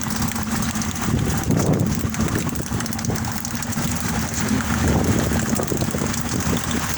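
Boat engine running with a steady low hum, under a wash of wind and water noise.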